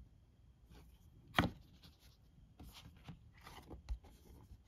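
Cardboard game boards being handled: one sharp tap about a second and a half in, then a few short scrapes and a light knock.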